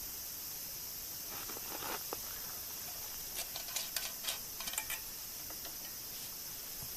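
A steady high insect chorus with scattered light rustles and clicks between about one and a half and five seconds in.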